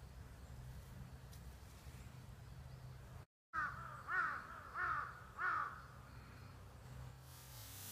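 A crow cawing four times in quick succession, about half a second apart, over a low steady background hum.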